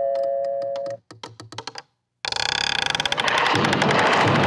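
Cartoon sound effects: a doorbell's lower 'dong' tone rings and stops about a second in, then comes a quick run of about eight sharp clicks. A little past two seconds, a loud, sustained rumbling crash with fast rattling sets in as the house shakes apart in a cloud of dust.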